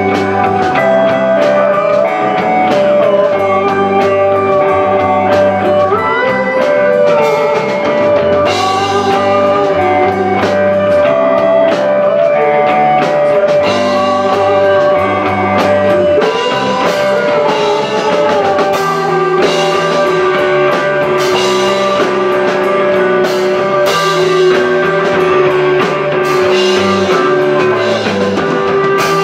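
Rock band playing a song live: guitar over a drum kit and low bass notes, with sustained and bending melody lines.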